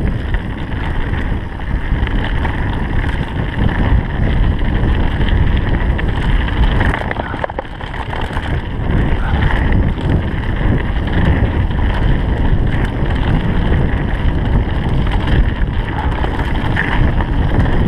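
Mountain bike rolling fast down a dirt forest trail: steady tyre noise on dirt and stone with wind buffeting the helmet-camera microphone, easing briefly about seven seconds in.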